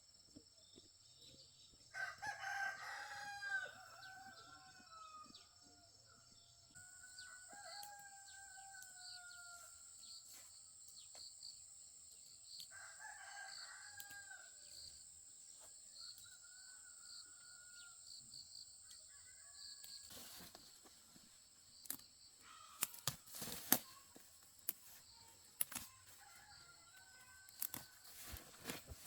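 Roosters crowing several times, some calls long and drawn out. In the last third come a series of sharp knocks and clicks.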